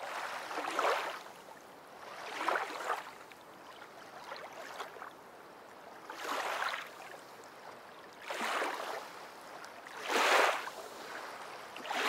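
Small waves washing onto a sandy beach, a swell of surf rising and falling about every two seconds.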